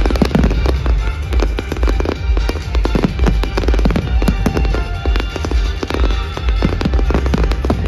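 A fireworks display going off in quick succession, with many sharp bangs and crackles, over loud music with a heavy bass.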